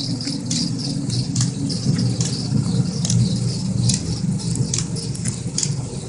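Water running along a channel below a dam: a steady low rushing, with irregular sharp clicks and rattles over it, a few a second.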